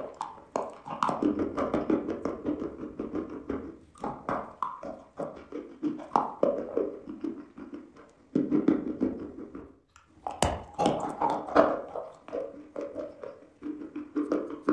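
Dry chalk being bitten and chewed: a rapid, irregular run of crunches, with one sharp crack of a fresh bite about ten seconds in.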